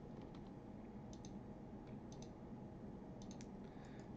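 Faint computer mouse clicks, about one a second, each a quick double tick of the button, over a low steady room hum.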